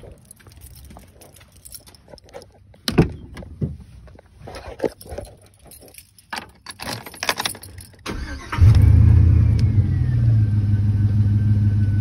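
Footsteps, a door thump about three seconds in and keys jangling, then the 2003 Chevy Silverado 1500's 4.8-litre V8 cranks briefly and starts about eight and a half seconds in. It flares up on catching and settles to a steady idle, with a faint whine falling in pitch as the revs drop.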